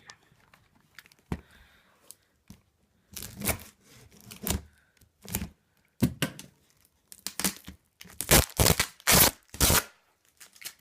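Cardboard box and packing tape being cut and ripped open with a knife: a series of short tearing strokes with pauses between them, the loudest run about eight to ten seconds in.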